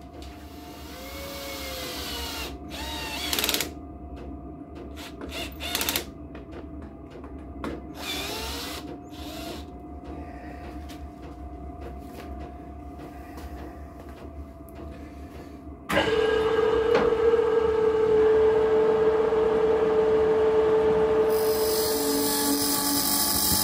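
Metal lathe switched on about two-thirds of the way in and running steadily, spinning a homemade jet engine's nozzle guide vane ring in its chuck; a hiss joins near the end. Before it starts, quieter workshop handling noises with a few brief clatters.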